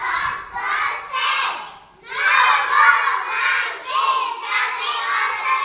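A roomful of five-year-old children talking and shouting over one another, with a short lull just before two seconds in and louder voices after it.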